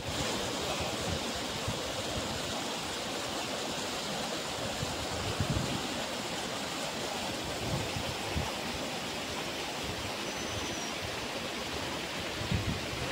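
Fast, shallow river rushing over rocky rapids: a steady wash of white-water noise.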